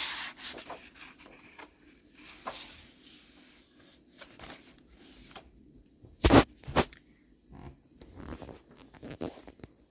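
Pages of a picture book being handled and turned: paper rustling and crackling, with two sharp, louder crackles about six seconds in.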